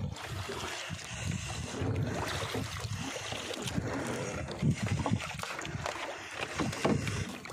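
Sea water sloshing and splashing against a small outrigger boat's hull and bamboo outrigger, with wind buffeting the microphone in irregular low rumbles.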